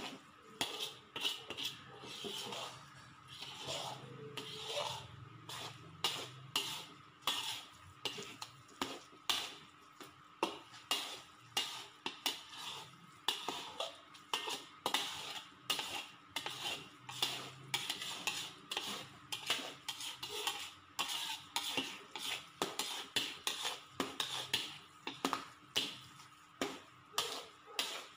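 Metal spoon and spatula scraping and knocking against a metal pan as sticky palm-sugar glutinous rice is stirred and folded, in a steady rhythm of about two strokes a second.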